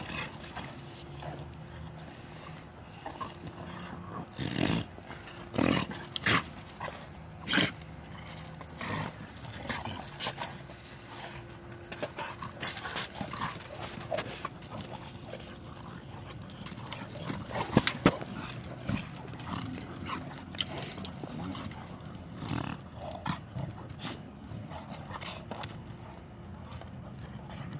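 Several dogs playing rough together: scuffling on wood-chip mulch with short, sudden dog sounds scattered throughout, the loudest coming between about four and eight seconds in and again around eighteen seconds.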